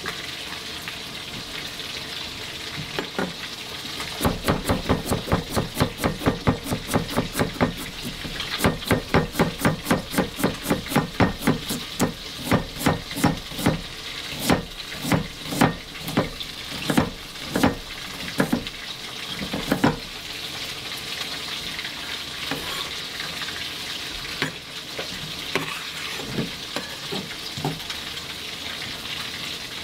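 Chef's knife chopping carrot on a wooden cutting board, in a steady rhythm of about three chops a second that slows to scattered single cuts about two-thirds of the way through, over a steady hiss.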